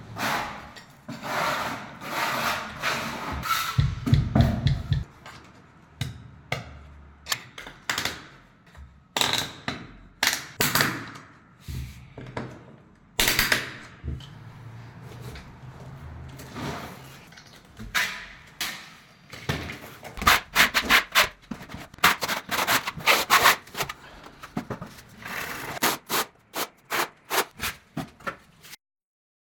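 Hand work of setting large floor tiles with plastic self-levelling clips: clicks, knocks and scraping rubs as clips and caps are fitted and tightened at the tile corners, with a few heavier thuds about four seconds in and quick runs of clicks later on. The sound cuts off just before the end.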